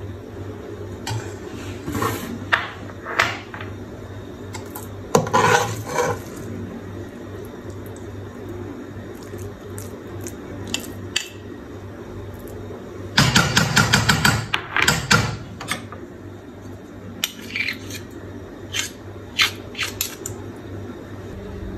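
A metal ladle scraping and clinking against a metal cooking pot while sticky sweet vermicelli is scooped and stirred. The knocks come in scattered clusters, with a dense rapid run about two-thirds of the way through.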